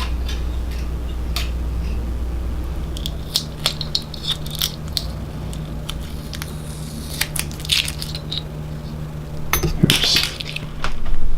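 Scattered hard plastic clicks and light clatter of Korg keyboard keys and parts being handled and snapped back into place, with a cluster of louder knocks near the end.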